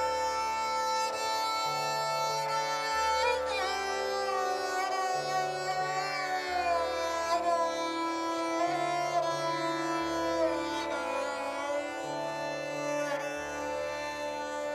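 Background instrumental music: a sitar-like string melody sliding between notes over a low bass line that changes about every two seconds.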